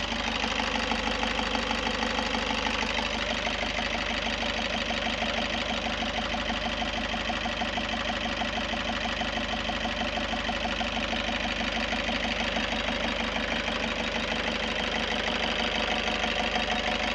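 Freshly rebuilt Toyota 2KD-FTV four-cylinder turbodiesel idling steadily, having started well after the rebuild.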